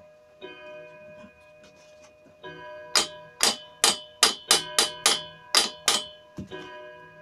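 Hammer blows on the steel leg fitting of a ZB37 machine gun tripod, knocking at a stuck nut to free the leg. A light tap or two, then a fast run of about ten hard blows in the middle, and one more tap near the end; every strike leaves a bell-like metallic ring.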